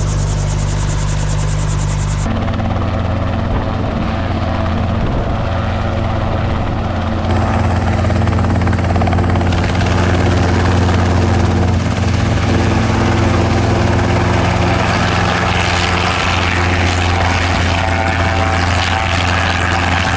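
Helicopter engine and rotor running, a loud steady low drone with several layered tones. The sound changes abruptly about two seconds in and again about seven seconds in.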